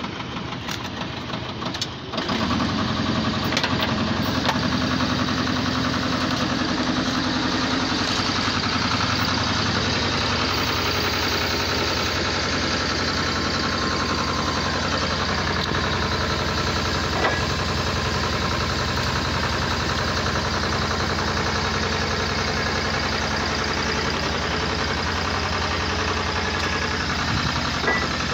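Engine of a HanFa HF150T water well drilling rig, idling and then, about two seconds in, speeding up to a louder steady run as the rig is put to work.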